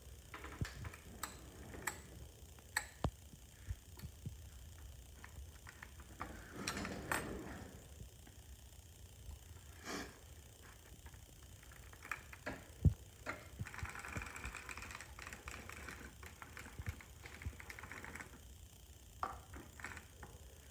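Irregular small metallic clicks and ticks from the needles and latches of a vintage Auto-Knitter circular sock knitting machine being worked by hand, stitch by stitch. There is one louder knock about halfway through and a stretch of soft rustling in the second half.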